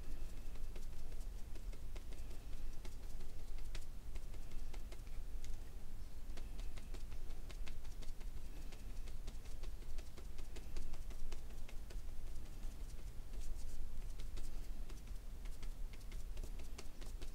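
Light, irregular tapping of a small brush stippling white paint onto card stock, over a low steady hum.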